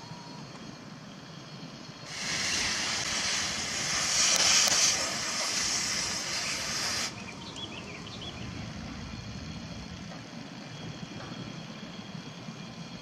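Heavy truck's compressed-air system venting with a loud hiss for about five seconds, over a low engine rumble; the hiss cuts off suddenly.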